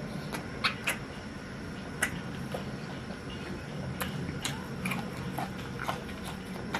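A person chewing roasted chicken close to the microphone: irregular sharp mouth clicks and smacks over a steady low hum.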